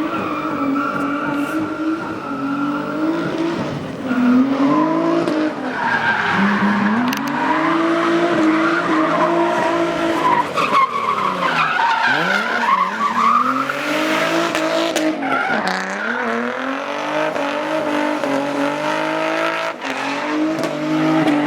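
Twin-turbo Nissan 350Z drifting: the engine revs climb and fall repeatedly, with several sharp drops, while the tyres squeal in long slides.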